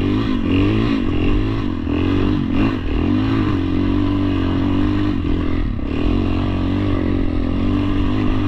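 ATV (quad) engine running under way, its pitch rising and falling with the throttle for the first few seconds, then holding steadier.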